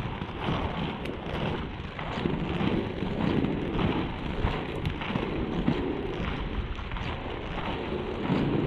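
Wheels of FR325 three-wheel inline skates rolling over rough asphalt, a steady gritty rumble that swells and fades with each skating push, with wind buffeting the microphone.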